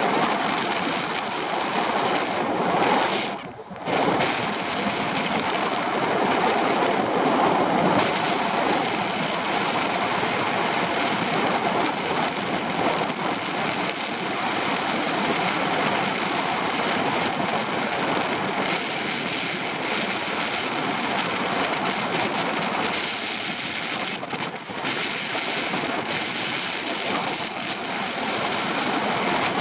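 Airflow rushing over the camera microphone of a paraglider in flight, a steady wind noise with a brief lull about three and a half seconds in.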